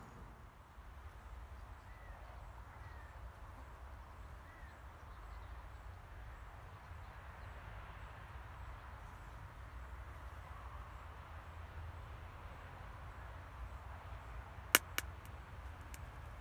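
Quiet riverside ambience: a steady rush of flowing river water with low wind rumble on the microphone and a few faint bird chirps in the first few seconds. Near the end come two sharp clicks close together, the loudest sounds.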